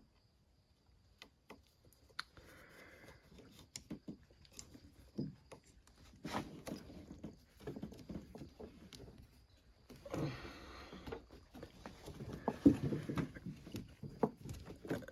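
Hand work fitting a hose clamp onto a snowmobile engine's fuel line: scattered clicks, taps and rustling of the clamp, hose and tools. It starts almost silent and gets busier near the end, with one sharp click standing out.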